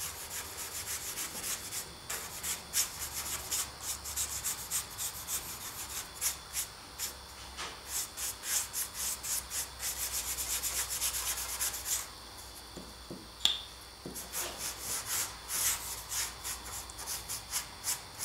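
A bristle brush scrubbing weathering powder onto a painted model roof panel in quick scratchy back-and-forth strokes, several a second. The strokes stop for a couple of seconds about two-thirds of the way through, with one sharp click in the pause, then start again.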